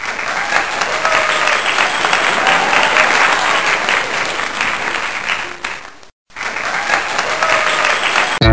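Crowd applause and cheering, fading out about six seconds in, then starting again after a brief gap.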